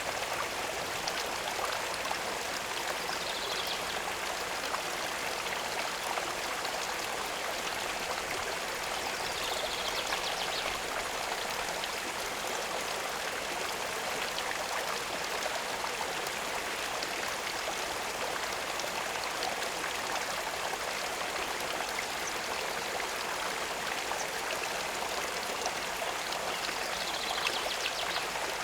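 Steady running water, an even rushing trickle. Faint, brief high chirps come through three times.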